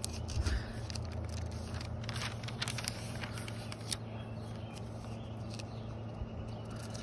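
Glossy catalog pages being handled and turned by hand: soft paper rustling with a few short crisp clicks, over a steady low background hum.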